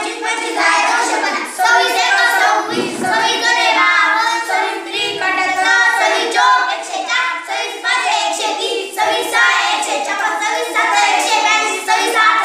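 A group of children chanting multiplication tables together in Marathi, in a steady sing-song recitation.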